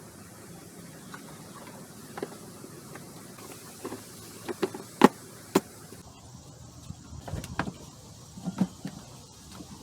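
Scattered light clicks and knocks of hand tools and parts being handled during the hose installation. The sharpest knock comes about five seconds in.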